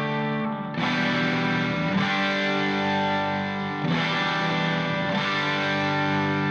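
Background music: distorted electric guitar holding sustained chords that change every second or two.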